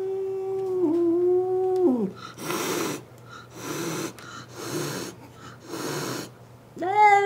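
House cat's angry territorial howl at a rival cat outside the window. A long drawn-out howl drops away after about two seconds. Then come four hisses about a second apart, and a new howl rises near the end.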